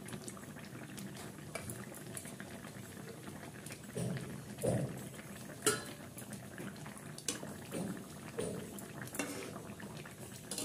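Fish curry bubbling in a steel kadai, with a few sharp clinks of a spatula against the pan.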